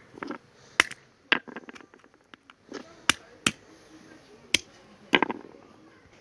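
Sharp clicks and knocks of objects being handled, about half a dozen spread irregularly, with short rustling sounds near the start and near the end.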